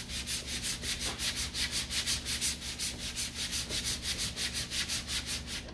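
Rapid, even back-and-forth rubbing, about five strokes a second, each stroke a dry hissy scrape.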